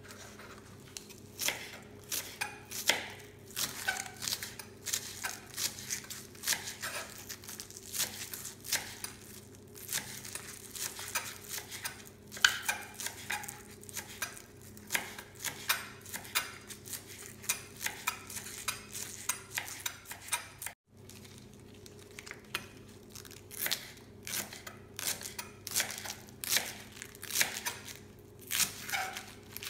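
Kitchen knife chopping spring onions on a wooden cutting board: a run of sharp knocks, a few a second, over a steady low hum.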